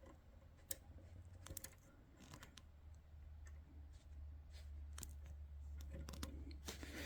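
Faint, scattered light clicks and taps from the metal parts of an Olympia Simplex typewriter's right-margin stop as they are handled and bent by hand, over a low steady hum.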